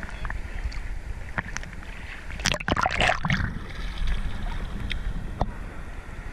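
Seawater sloshing against a camera held at water level in the surf, with a low steady rumble. About two and a half seconds in, a wave splashes over the camera for about a second.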